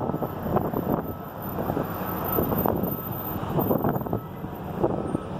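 Tracked excavators working demolition rubble: diesel engines running under a string of clanks and crashes of metal and debris, with wind buffeting the microphone.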